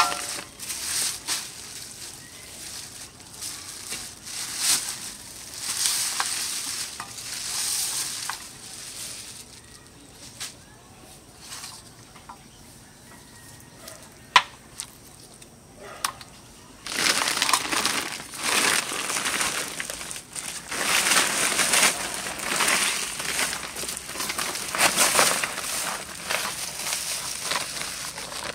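Plastic bags and a woven polypropylene sack rustling and crinkling as fish are unwrapped by hand and laid on a steel plate, in irregular bursts that turn dense in the second half, with a single sharp click about halfway through.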